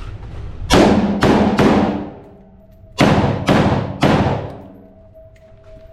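Six shots from an AR-15-style semi-automatic rifle, fired in two quick strings of three with a pause of about a second between them, each shot ringing out with a short echo.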